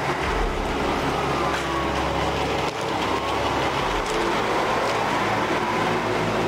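A truck driving slowly past, its engine and tyres making a steady noise that swells in at the start, with a faint whine that dips and then rises in pitch.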